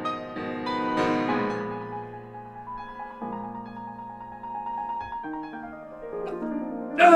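Piano music score playing sustained notes. Near the end, a man's short, loud cry of anguish.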